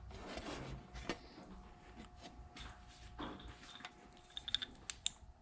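Faint handling noises of the opened cord reel's parts: light scattered taps and rustling, with a short run of sharper small clicks a little past four seconds in, over a faint steady hum.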